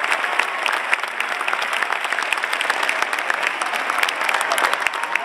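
A large theatre audience applauding, a dense and steady patter of many hands clapping.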